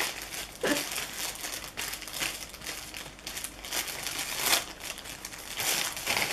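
Blind-box packaging crinkling and rustling in the hands as it is opened to get at the figure inside: a run of irregular crackles with a few louder ones.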